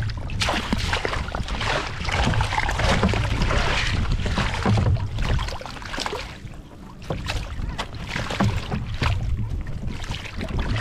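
Splashing water, rustling and short knocks as a large lake trout is landed in a net at a kayak's side, over a steady low wind rumble on the microphone. There is a brief lull a little past the middle.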